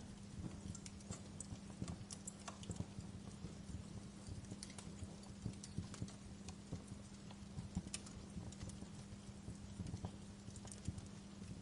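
Wood fire burning in a fireplace, crackling with irregular sharp pops and snaps over a low steady hum.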